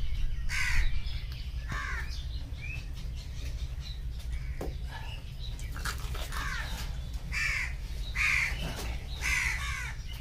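Crows cawing repeatedly, short harsh calls coming every second or so, over a steady low hum.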